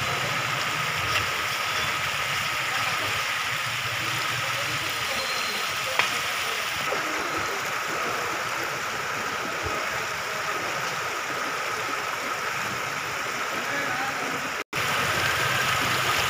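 Floodwater rushing across a paved street, a steady rushing noise that drops out for an instant near the end.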